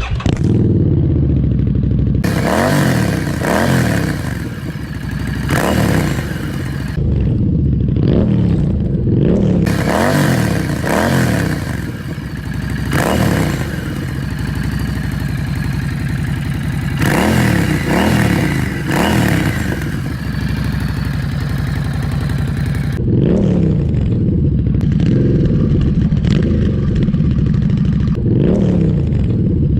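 Harley-Davidson Street 750's V-twin engine, fitted with MotoMiu twin aftermarket exhausts, fires up and is revved over and over in throttle blips, each rising and falling in pitch, with a steadier idle stretch in the middle. It is very loud.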